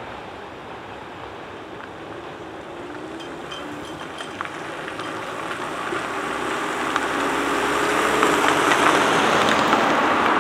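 Cars driving over a level crossing just after the barriers lift, their tyre and engine noise growing steadily louder as one comes close.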